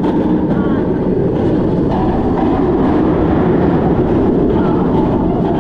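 Montu's B&M inverted coaster train running at speed. A steady roar of wind on the rider-mounted microphone blends with the wheels rumbling along the steel track.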